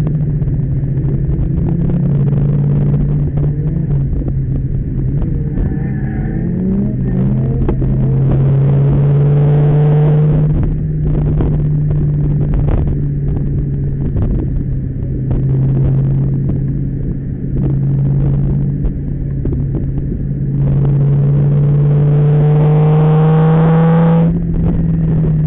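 Ford Mustang's engine heard from inside the car on a track lap: full-throttle pulls with the pitch rising, one about eight seconds in and a long one near the end that cuts off sharply as the throttle is lifted, with lower, uneven running through the corners between.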